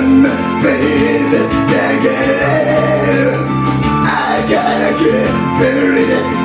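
A song played on guitar, with a singing voice carrying a melody over it.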